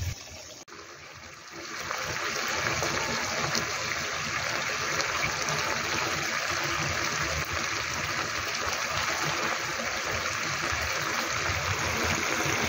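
Gochujang tteokbokki sauce with rice cakes and ramen noodles bubbling hard in a frying pan: a steady sizzling hiss with fine crackle that comes in about a second and a half in.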